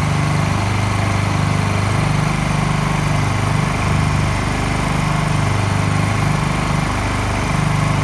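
Two Honda EU2000 inverter generators' small four-stroke engines running steadily, heard up close. Their low hum wavers slightly in pitch and strength.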